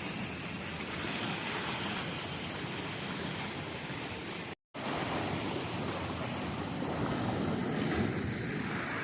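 Steady rushing noise, like wind buffeting the microphone or moving water, broken by a sudden moment of total silence about halfway through.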